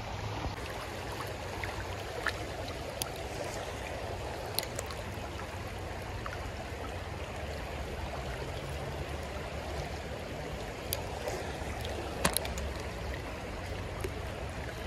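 Creek water running steadily over a shallow, rocky riffle, with a few faint, brief clicks here and there.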